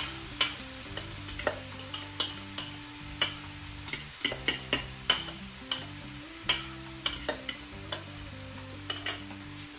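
Cooked rice being scraped out of a bowl into a hot frying pan of sautéed onions, garlic and peppers: a utensil clicks and taps against the bowl at irregular moments, about every half second, over a steady sizzle from the pan.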